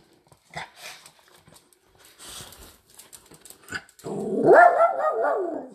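Light clicks and scuffles of small dogs' claws moving on a tile floor, then about four seconds in a small dog gives a loud, drawn-out whining howl that wavers up and down for about a second and a half.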